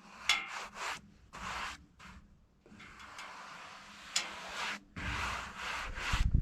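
A series of rubbing, brushing strokes across the face of a freshly sawn spalted maple slab, some short and one about a second long, with a low rumble near the end.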